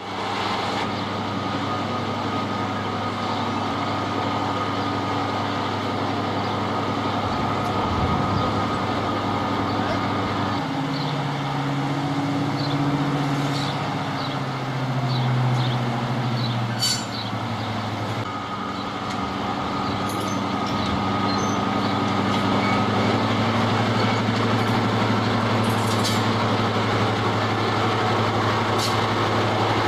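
Diesel locomotive engine running with a steady drone. Its pitch shifts up and down between about 11 and 16 seconds in, then settles again, with a sharp click near 17 seconds.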